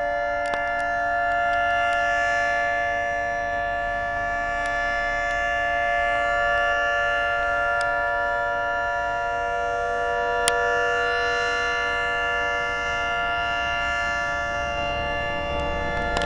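Federal Signal Thunderbolt 3T22 outdoor warning siren, roof-mounted, sounding a steady tone during a siren test. Its loudness swells and eases slightly, and a single sharp click cuts through about ten and a half seconds in.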